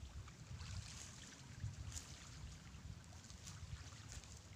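Low, uneven wind rumble on the microphone, with a few faint, brief ticks scattered through it.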